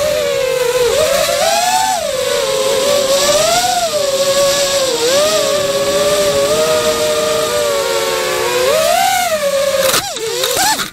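Racerstar 2403 brushless motors and propellers of a 180 mm FPV racing quadcopter whining in flight, several close tones rising and falling together with the throttle. Near the end the whine falters and wobbles as the quad hits bushes.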